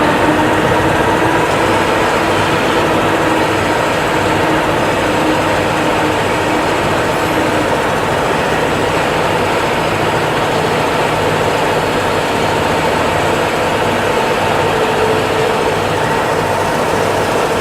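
Plasma cutting machine running: a loud, steady hiss with a steady humming tone on top.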